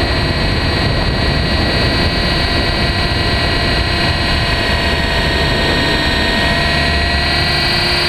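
RC helicopter's motor, gears and rotor running at flight power, heard from a camera mounted on the helicopter itself: a loud, steady high whine over a rough rumble of rotor wash. The whine sags slightly in pitch and climbs back near the end as the helicopter pitches up.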